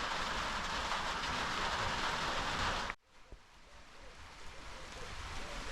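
Steady hiss of light rain falling. About halfway through it cuts off abruptly and gives way to much quieter outdoor ambience.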